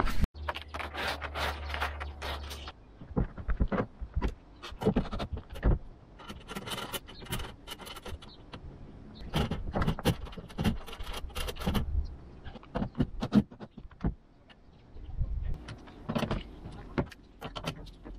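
Aluminium solar-panel mounting rails and L brackets being handled and fastened on a corrugated steel roof: irregular metallic clicks, clatters and knocks, busiest near the middle and towards the end.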